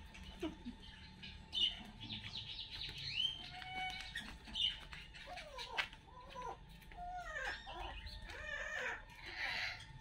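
Several birds calling: a busy scatter of short chirps and quick downward-sliding whistles, over a faint steady hum.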